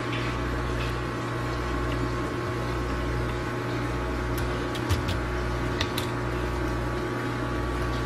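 Steady mechanical hum of a running motor, with a low throb that pulses about once a second. A few faint clicks near the middle come from the knife working along the rockfish's back.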